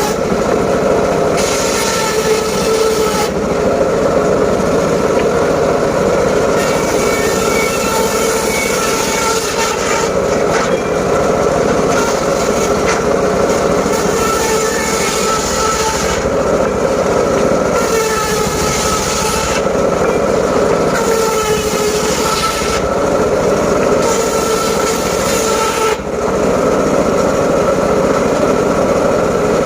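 Engine-driven mobile circular saw running steadily while cutting teak wood, with a brighter cutting noise that comes and goes every few seconds as the blade works through the timber.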